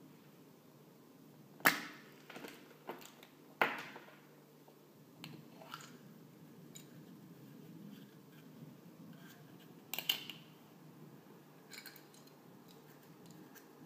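Chocolate shell of a Kinder Surprise egg cracking in the hands: two sharp snaps about two seconds apart, with smaller crackles of the breaking pieces. Later come quieter plastic clicks and rustles as the toy capsule is opened and its parts handled, with a brief cluster of clicks near the ten-second mark.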